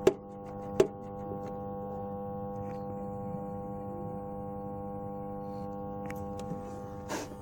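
NSM GP Minibox jukebox running with a steady electrical hum, broken by two sharp mechanical clicks in the first second and a brief rustle near the end.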